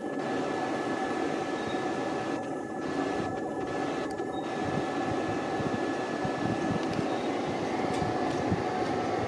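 Electric passenger train running at the station: a steady rumble with a thin, high-pitched whine held over it.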